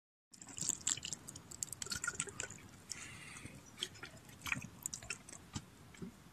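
Dry straw and fallen leaves crackling and rustling under a kneeling and shifting person, in irregular small clicks.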